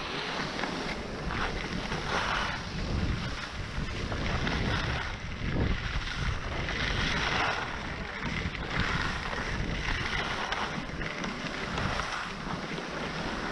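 Skis hissing and scraping over packed groomed snow during a downhill run, the scrape swelling every second or two, with wind buffeting the microphone.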